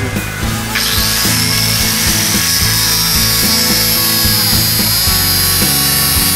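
Electric angle grinder switched on about a second in, its whine rising quickly and then running steadily, over background music.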